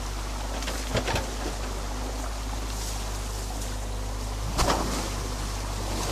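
Muddy water rushing through a fresh breach in a beaver dam, over the steady low running of an excavator's engine. A few short knocks come about a second in and a louder one about two-thirds of the way through.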